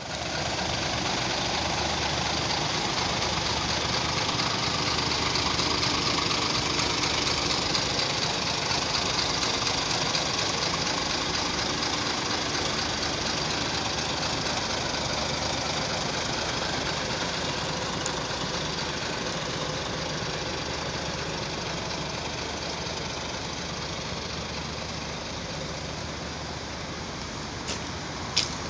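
Scania 94D 230 tanker's five-cylinder 9-litre diesel idling steadily, with a steady hiss above the engine note. Two short sharp clicks come near the end.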